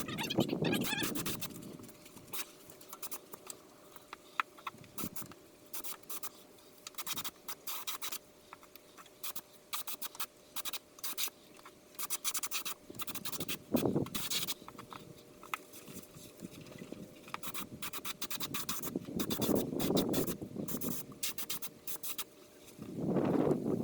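Irregular scratching and clicking, with a few louder swells near the start and end.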